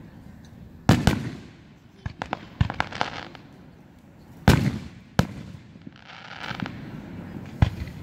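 Aerial fireworks shells bursting: several loud booms that echo away, the biggest about halfway through, with lighter pops and crackles between them.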